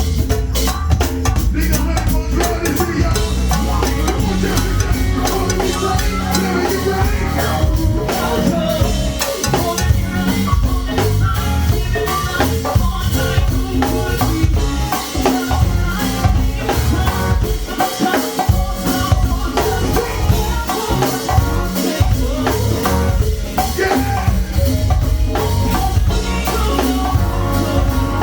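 Go-go band playing a steady drum-kit and percussion groove over bass.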